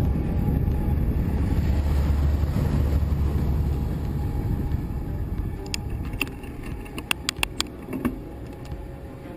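Vehicle driving on a rough road, a low rumble of engine and road noise that is loudest for the first three seconds or so, as a pickup truck overtakes close by, then fades. From about halfway, a run of sharp separate ticks and clicks.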